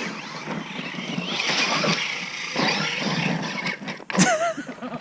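Large brushless-electric RC monster trucks driving hard, motors whining up and down in pitch over a steady churn of tyres in mud, with a sharp knock about four seconds in.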